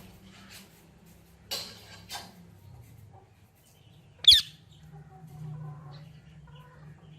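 Pet parrot calling: a couple of short, harsh chirps, then one loud, sharp squawk about four seconds in, followed by faint soft chatter.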